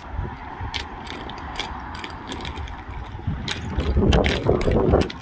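Bicycle freewheel hub ticking as the bike rolls along, with wind rumbling on the microphone that is strongest about four seconds in.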